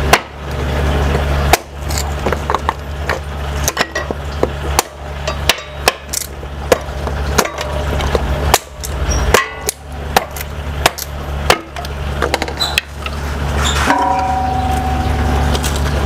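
Hatchet chopping and splitting thin wooden slats into kindling: many sharp, irregular chops and cracks, roughly one a second, which stop a couple of seconds before the end. A steady low hum runs underneath.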